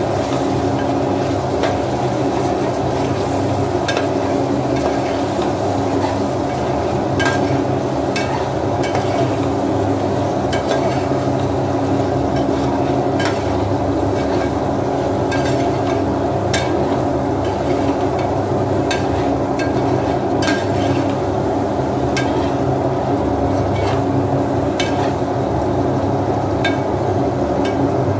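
A metal slotted spoon stirring chicken curry in a metal cooking pot, scraping and clinking against the pot in irregular sharp clicks, roughly one a second, over a steady low hum.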